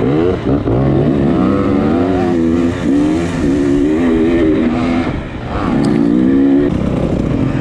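Dirt bike engine revving up and down under the rider's throttle while riding a trail, its pitch rising and falling with a short dip and pick-up about five seconds in.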